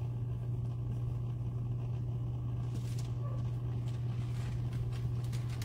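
A steady low hum with no breaks or changes.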